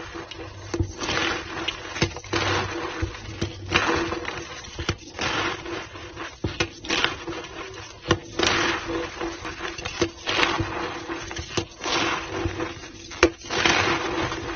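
Powdered white gym chalk being squeezed and pressed back into a block by hand, a run of crunchy, squeaky squeezes about one a second with sharp little cracks between them, played at double speed.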